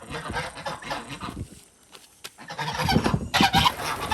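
Domestic geese honking and calling, with a brief lull about halfway through before they start up louder again.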